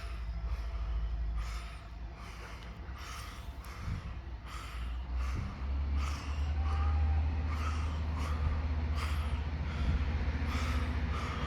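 DPKr3 diesel train running, a low engine rumble that grows louder about five and a half seconds in, with short noisy pulses repeating about twice a second.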